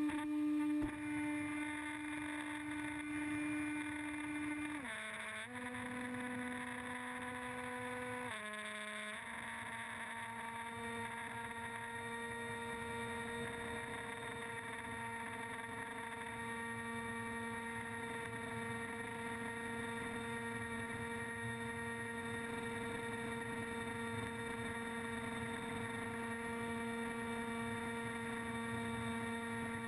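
Electric motors and propellers of a multirotor drone whining steadily. The pitch glides down twice, about five seconds in and again near nine seconds, then holds steady as the throttle settles.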